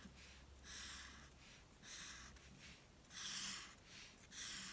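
Black Sharpie marker drawn across paper in four short, faint scratchy strokes, about one a second, as stripes are inked in.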